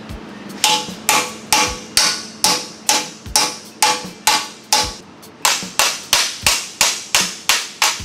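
Hand hammer striking a steel plate held in a bench vise to bend it over, a steady run of sharp metallic blows about two to three a second, each with a short ring.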